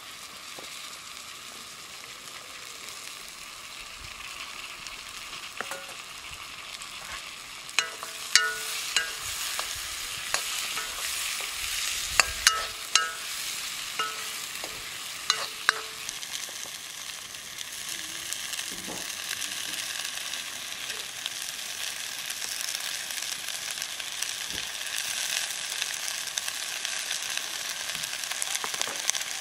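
Chopped vegetables sizzling in hot oil in a black iron wok, stirred with a metal ladle. Between about 8 and 16 seconds the ladle strikes and scrapes the pan in sharp, ringing clinks; the sizzle grows louder in the second half.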